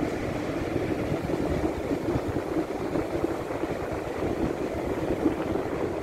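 North Sea surf washing steadily onto the beach, with wind buffeting the microphone in gusty rumbles.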